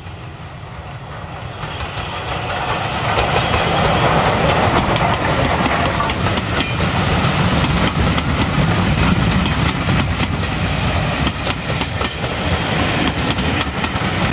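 Steam locomotive hauling a passenger train approaches and passes, its running noise growing loud over the first four seconds. The coaches then roll by with a steady rumble and a rapid clatter of wheels on the rails. The sound cuts off suddenly at the end.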